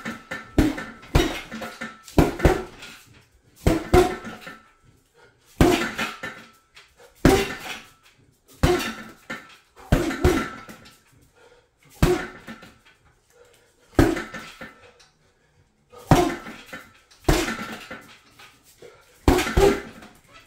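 Gloved punches landing on a heavy bag hung from a metal stand, singly or in quick pairs about every one and a half to two seconds, each thud followed by a short metallic clatter from the stand.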